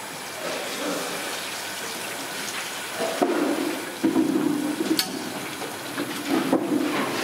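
Chicken pieces deep-frying in a large iron kadai of oil, a steady loud sizzle from the frothing oil. A few sharp metal clinks from the second half on, a long ladle knocking against the pan.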